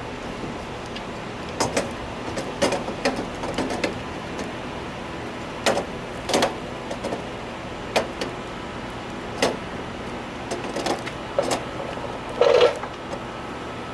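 Irregular clicks, taps and knocks of headlight parts and wiring being handled and fitted, about a dozen spread unevenly, with a louder clunk near the end. A steady low hum runs underneath.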